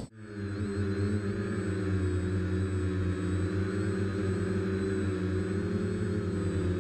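Home-built Aeroquad quadcopter's electric motors and propellers humming steadily in flight, several fixed pitches layered, heard from the onboard camera. The hum swells up quickly after an abrupt drop at the start.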